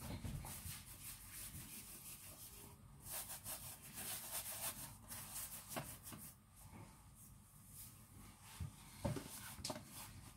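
Hands sliding and pressing a rope of bread dough along a floured wooden countertop: faint rubbing, with a few soft knocks in the second half.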